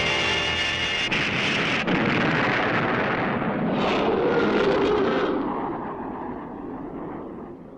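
Sci-fi energy-beam sound effect, a steady high whine, hitting a monster. It is followed about a second in by a long explosion with crackle that fades away over the last couple of seconds.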